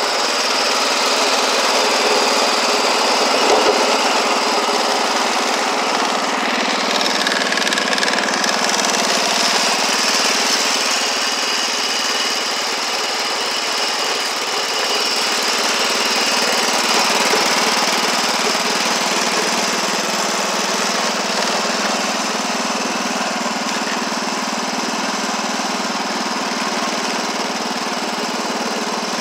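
Wheel Horse garden tractor engine running steadily as the tractor is driven.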